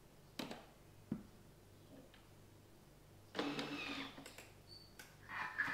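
Thermomix's selector dial being turned to set the cooking time: a few faint, separate clicks, a louder rustling sound of about a second around three and a half seconds in, and a short high beep near the end.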